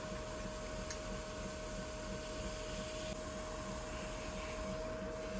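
Electric potter's wheel spinning at speed while wet clay is centered by hand: a steady motor hum with a constant high whine over it.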